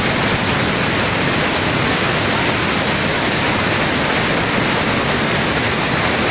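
Muddy floodwater of a river in heavy flood rushing and churning past in a torrent, a loud, steady roar of water with no let-up.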